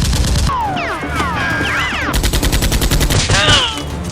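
Automatic gunfire sound effect: a rapid burst at the start and another longer, even burst about two seconds in, with gliding pitched cries in between.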